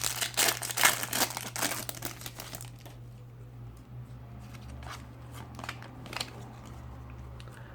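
Foil trading-card packet being torn open and crinkled, a dense crackling for the first few seconds that thins to a few light rustles and clicks. A steady low electrical hum sits underneath.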